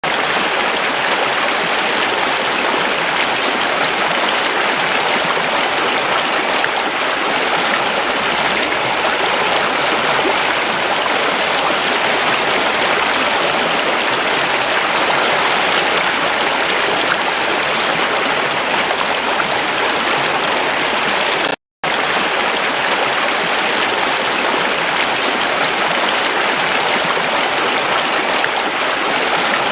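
Forest river water flowing steadily over rocks, a dense even rush. The sound cuts out completely for a split second about two-thirds of the way through, then resumes.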